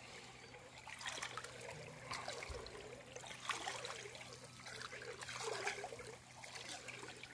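Hooked sea bass splashing at the water's surface as it is reeled in, a run of splashes about a second apart, over a faint steady low hum.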